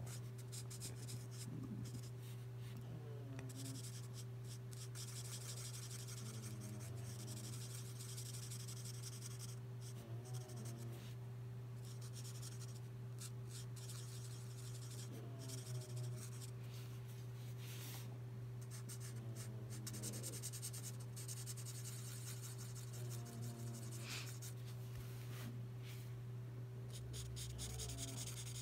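Felt-tip marker nib (L'emouchet twin marker) rubbing over paper in short back-and-forth strokes as an area is filled in, over a steady low hum.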